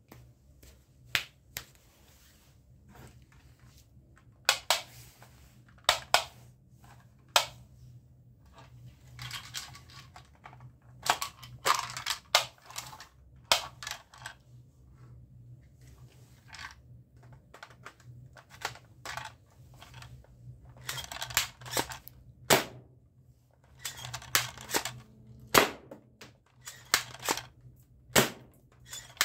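Plastic toy guns clicking and clacking as they are handled: sharp single clicks and knocks scattered throughout, with quicker clusters of clatter in places.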